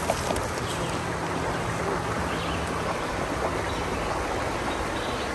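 Steady rushing of a mountain creek, with a couple of soft knocks near the start.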